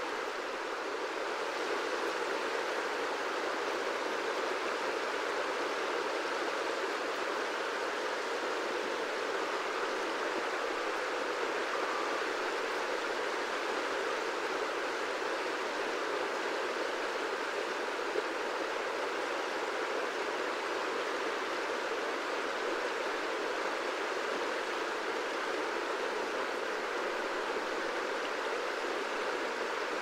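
Wide river flowing: a steady, even rush of moving water.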